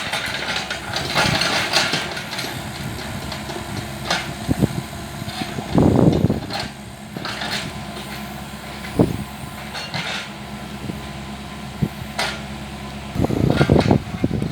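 Mini excavator's engine running steadily, with scattered knocks and clunks as the machine works, the loudest about six seconds in and several more near the end.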